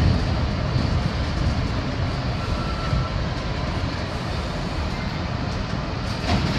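Bombardier R62A subway car running along the track, heard from inside the car: a steady rumble of wheels on rail, easing slightly in level, with a few sharp clacks near the end.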